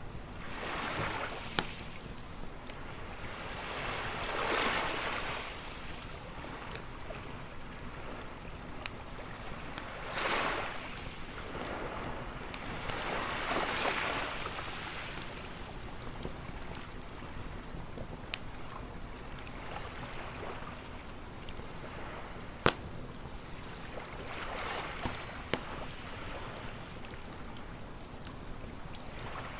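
Waves washing onto a shore in slow swells every few seconds, with the scattered sharp pops and crackles of a wood campfire.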